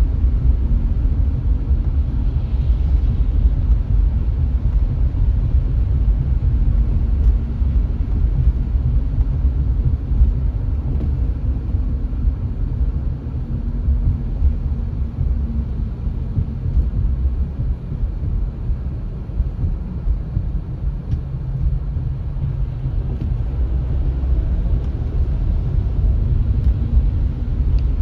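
Steady low rumble of a car driving along a city street: engine and tyre noise, dipping slightly in loudness midway.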